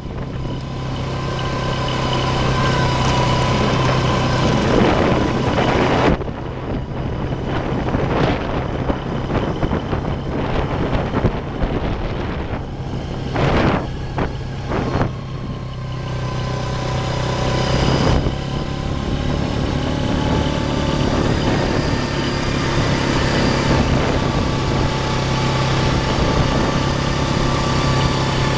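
Four-wheeler ATV engine running steadily while under way, with gusts of wind buffeting the microphone now and then.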